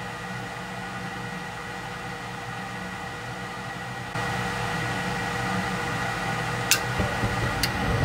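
Two-stage gas furnace's inducer fan running steadily at low speed with a constant hum; about four seconds in the sound steps up to a louder, fuller rush as the burners light at low fire. A low rumble builds and two sharp clicks come near the end.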